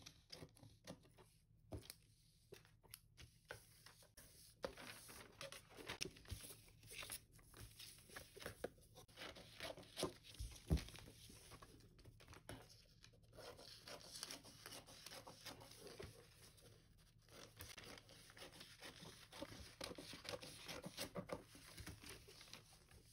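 Scissors cutting through a paper pattern sheet, faint and irregular, with snips and the rustle and crinkle of the paper as it is handled.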